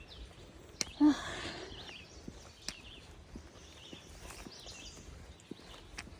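Outdoor ambience with scattered sharp clicks and faint high chirps. About a second in, a brief loud voice sound is followed by about a second of breathy noise.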